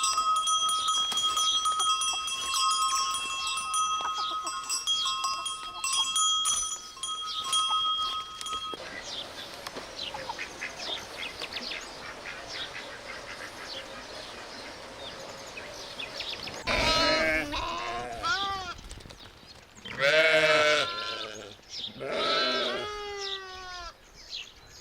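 Steady ringing bell-like tones for the first third, then three loud bleats from goats or sheep in the second half, each a wavering pitched call about a second long.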